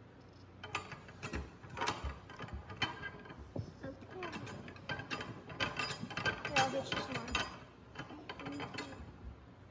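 An antique hand-operated metal cherry pitter being worked stroke after stroke, its plunger pushing pits out of fresh cherries with irregular metallic clanks, clicks and squeaks. The mechanism is dry and squeaky, in the owner's words in need of oil.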